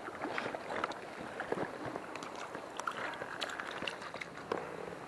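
Water lapping and splashing, with many small irregular clicks.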